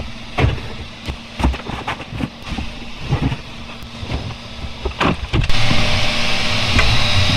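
Plastic bottles knocking against a chrome wire pull-out cabinet organizer as they are set into it: a string of light, irregular clunks and rattles. About five and a half seconds in, a louder steady hiss takes over.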